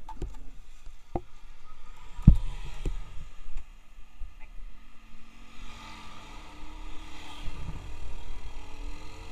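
A few sharp knocks against a helmet-mounted microphone, the loudest a little past two seconds in, then a motorbike engine and wind rumble as the bike pulls away, the engine note rising slowly as it picks up speed.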